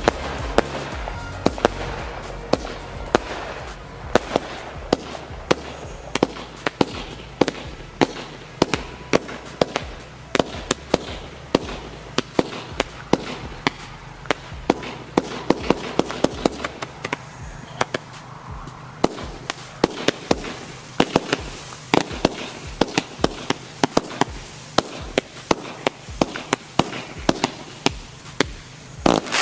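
'Dragon Fire' firework battery (cake) firing a rapid, continuous series of shots, with sharp bangs about two to three a second.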